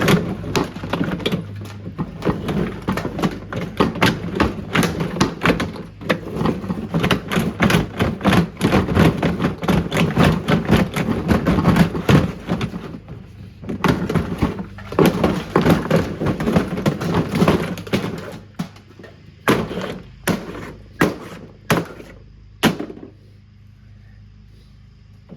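Plastic housing of a portable washing machine being smashed apart: a long, rapid run of knocks and cracking. It breaks off briefly twice and ends in a few separate blows.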